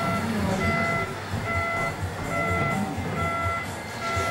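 Reversing warning beeper on an RC construction model, beeping evenly a little more than once a second, over the low, steady rumble of the model's engine sound.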